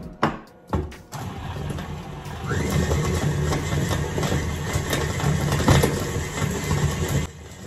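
Electric stand mixer with a paddle attachment beating room-temperature butter. A couple of knocks come as the head and bowl are set. The motor starts about a second in, speeds up with a rising whine a second or so later, runs steadily and is switched off shortly before the end.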